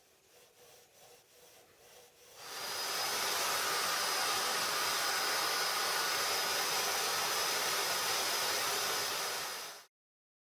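Homemade bandsaw driven by a washing machine motor, running quietly with a faint regular ticking, then cutting into a workpiece from about two seconds in: a loud steady hiss with a high whine. The sound cuts off suddenly near the end.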